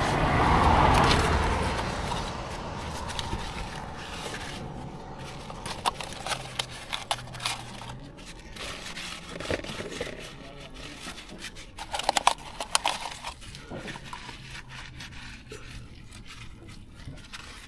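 Tissue paper rubbing and scraping along a Honda motorcycle's slack drive chain, with scattered clicks from the chain links. A louder rushing noise fills the first couple of seconds.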